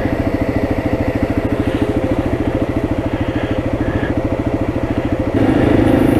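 Off-road vehicle engine running at low speed, a steady even putter, heard from on board. It grows louder and fuller about five seconds in.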